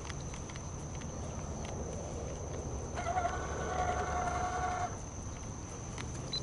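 A rooster crowing once, a single pitched call about two seconds long starting about three seconds in, over a steady low hum.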